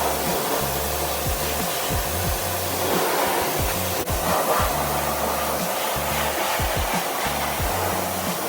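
Pressure washer spraying with a steady, continuous hiss, over background music with a bass line.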